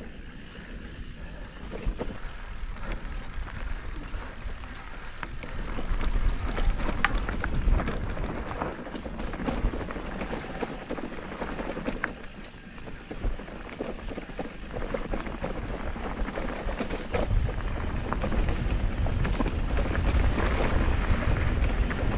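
Mountain bike riding down a dirt trail: tyres rolling over dirt and stones, the bike rattling with many quick clicks over the bumps, and wind rumbling on the microphone.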